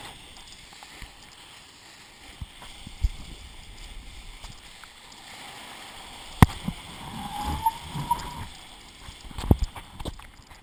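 Water sloshing and gurgling, muffled through a GoPro's waterproof housing while kiteboarding, with a few sharp knocks on the housing.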